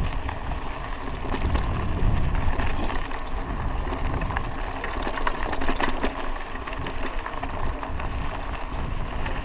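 Bicycle tyres rolling over a rough dirt road, a steady crackle of grit and small clicks and rattles from the bike, over a low rumble.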